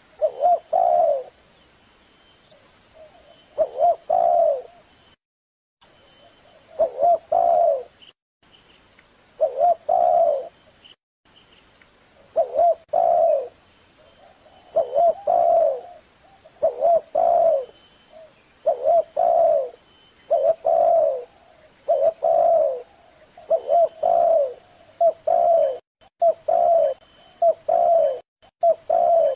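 Spotted dove cooing: short repeated coo phrases, a few seconds apart at first, then coming about once a second from the middle on. Now and then the background drops out to dead silence for a moment between phrases.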